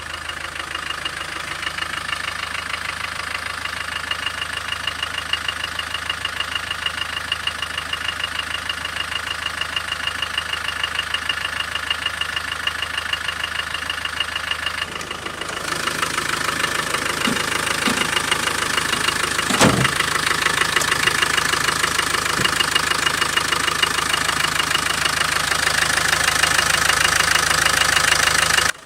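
Land Rover 300Tdi four-cylinder turbodiesel idling with a rapid, ringing, bell-like metallic knock in time with the engine; the owner hears it only from idle to about 1100 rpm and suspects the number-one piston or water pump area. About halfway through it gets louder and fuller, and a single sharp thump stands out a little after that.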